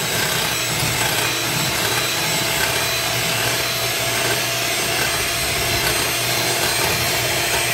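Dash electric hand mixer running steadily, its beaters whipping two egg whites to stiff peaks in a glass bowl.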